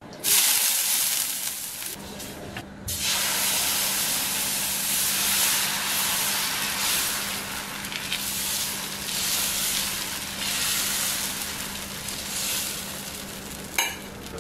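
Black rice dosa batter sizzling and hissing on a hot dosa tawa as it is ladled on and spread. There is a short dip in the sizzle just under three seconds in, and a single sharp tap near the end.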